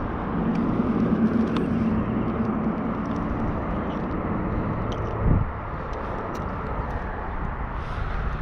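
Steady rumble of nearby road traffic, with a faint engine hum about a second in and a single brief thump about five seconds in.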